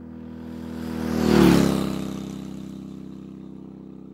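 Motorcycle engine sound effect passing by: it grows louder to a peak about a second and a half in, drops in pitch as it goes past, then fades away.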